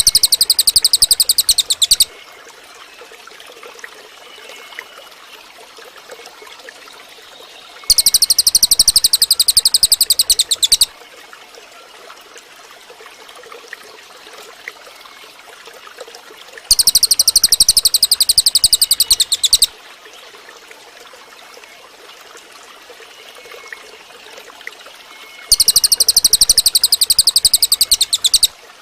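Cililin bird singing a very rapid, high-pitched trill of about three seconds, repeated four times at even gaps of about nine seconds, with a stream trickling steadily between songs.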